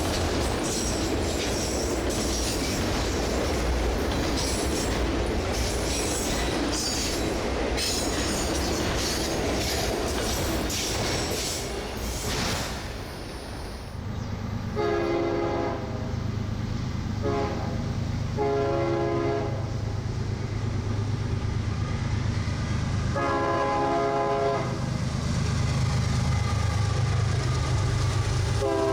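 Freight cars of a CSX manifest train rolling past with a steady clickety-clack of wheels over rail joints. About fourteen seconds in this gives way to an approaching diesel locomotive's low engine rumble and a series of air-horn blasts, mostly long with one short one, the last starting right at the end.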